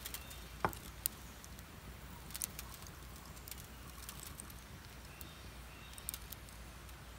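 Scattered light ticks and clicks of dry rice grains trickling from a hand into a glass bottle, over a faint crackle from a small wood fire.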